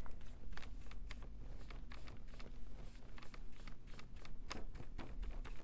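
Light, irregular clicks and scratches of a paintbrush being worked in a small plastic paint pot and brushed onto a laser-cut wooden piece, several a second.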